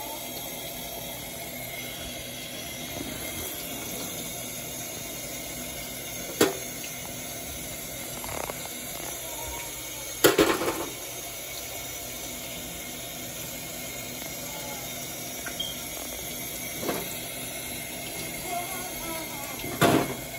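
Kitchen tap running into a stainless steel sink as a cleaned trout is rinsed under it: a steady splashing hiss. A few sharp knocks break through, the loudest about ten seconds in.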